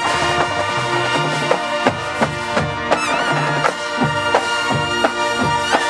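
Marching band playing: brass holding loud chords over drumline strikes that land about every half second.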